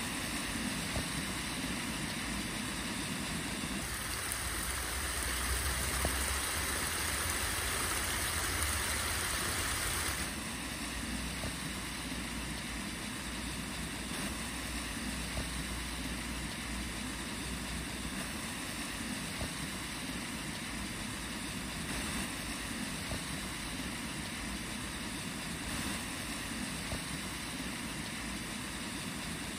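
Steady outdoor rushing noise of river water lapping and breaking against a rocky bank. A louder low rumble runs from about four to ten seconds in.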